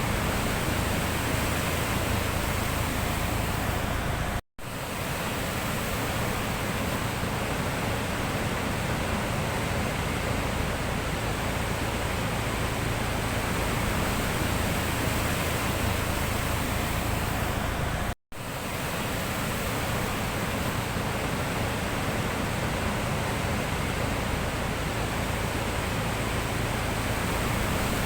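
Sea surf making a steady, even rush of noise, cut out for an instant twice.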